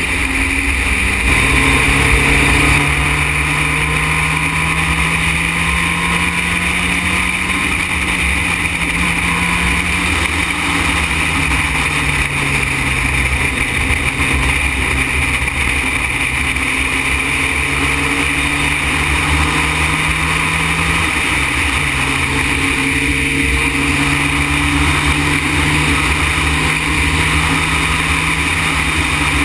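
Formula Renault single-seater's engine running hard at speed, heard from a camera on the car with loud wind noise; the engine note holds mostly steady and dips briefly in pitch twice.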